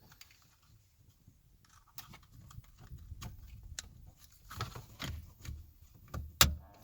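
Small plastic clicks and rattles from wiring connectors being handled and plugged back into a steering-column wiper switch, with one sharp click near the end.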